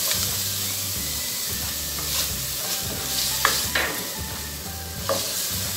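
Chopped onion sizzling in hot olive oil with sautéed garlic in a ceramic-lined pan, stirred with a wooden spoon. A few short scrapes of the spoon against the pan stand out over the steady sizzle.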